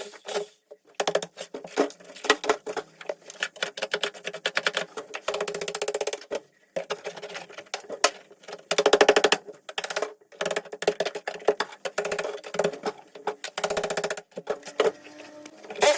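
Power tool chiselling wall tiles off a kitchen splashback, running in short bursts of rapid, evenly spaced hammer blows with brief stops between them.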